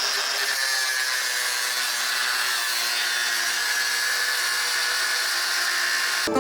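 Grinder with a cutting disc cutting into a metal bar: a steady, high grinding whine that runs without a break, then cuts off near the end.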